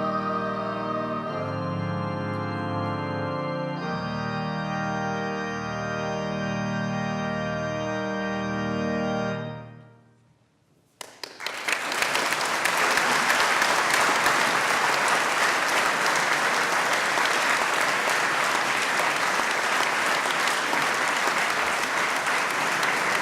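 A musical performance ends on long held chords that change twice and then fade out about ten seconds in. After a second of quiet, an audience breaks into steady applause.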